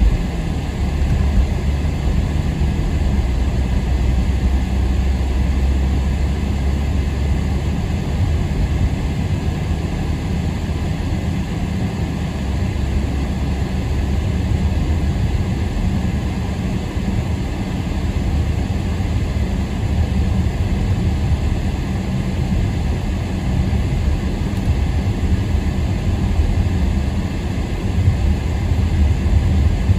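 Steady low engine drone and tyre-on-road noise inside the cabin of a moving car, with a deep hum strongest in the first several seconds.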